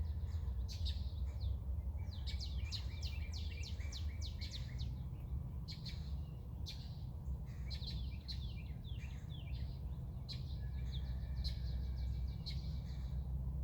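Wild songbirds chirping in the early morning: runs of short, quick, downward-sweeping chirps come one after another, over a steady low rumble.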